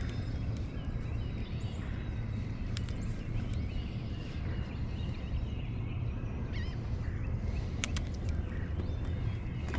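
Birds chirping here and there over a steady low rumble, with a few sharp clicks.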